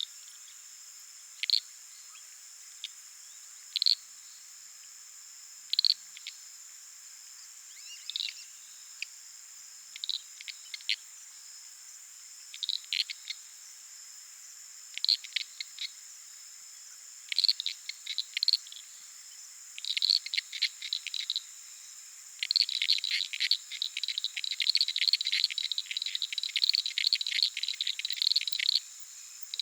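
Uruguay harlequin frogs (Lysapsus limellum) giving clicking calls: single clicks and short click series every second or two, building about three quarters of the way through into a dense run of rapid overlapping clicks. A steady high-pitched drone runs underneath.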